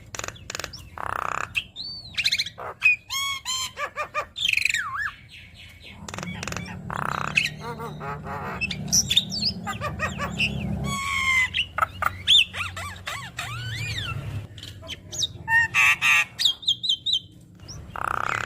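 Javan myna (jalak kebo) singing a loud, varied song: rising and falling whistles, rapid trills, sharp clicks and harsh squawks follow one another without pause, full of borrowed phrases.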